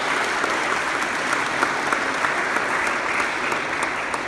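Audience applauding: a crowd of people clapping steadily.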